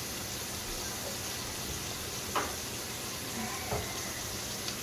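Food sizzling steadily as it fries in hot oil, with two light clicks, one about two and a half seconds in and another near four seconds.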